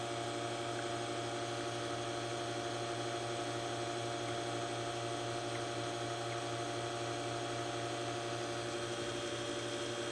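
La Spaziale Vivaldi II espresso machine's rotary pump running with a steady hum, pushing water through the group head during a double-shot extraction.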